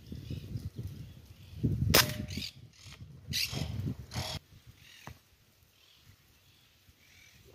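A PR900S PCP air rifle fires once, a single sharp crack about two seconds in. A couple of shorter sharp noises follow over the next two seconds, with low bumps of handling or wind on the microphone before the shot.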